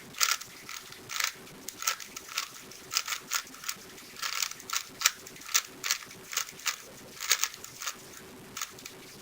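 3x3 speedcube being turned by hand: irregular plastic clicks and clacks, a few a second in quick groups, stopping shortly before the end.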